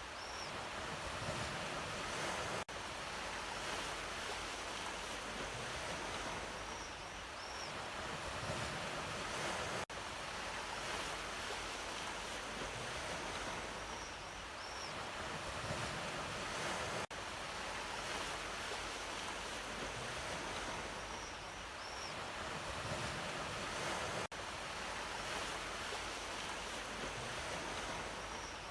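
Ocean surf washing steadily, swelling and easing about every seven seconds. The recording loops, with a brief dropout at each seam and a faint short high chirp recurring every cycle.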